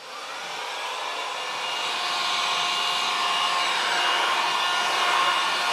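Electric heat gun blowing hot air over wet epoxy resin, a steady rush of air with a whine in it that comes up to full strength over the first couple of seconds. The heat is warming the resin to bring up and pop the air bubbles in it.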